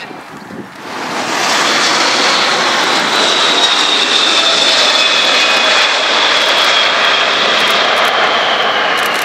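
Boeing 747-400 freighter's four jet engines on final approach, passing close: a loud steady rush that swells up about a second in, with a high fan whine that slowly falls in pitch.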